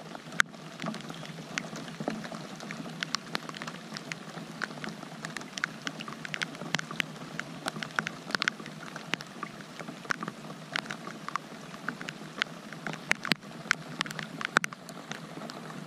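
Rain falling on the kayak and the camera housing: many irregular, sharp drop ticks over a steady hiss.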